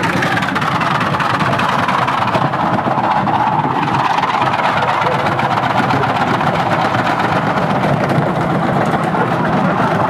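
Burning washing machine running on mains power: a steady mechanical drone with a whine from its motor and drum, the whine settling a little lower in pitch over the first couple of seconds, then holding.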